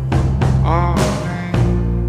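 Rock song with drum hits and a sung or played line gliding in pitch about half-way through.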